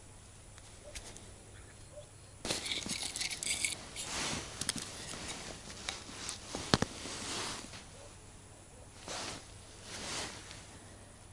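Hands handling small ice-fishing tackle (side cutters, spare nod tips, a small winter rod): scattered rustling with a few clicks, and one sharp click about two-thirds of the way through.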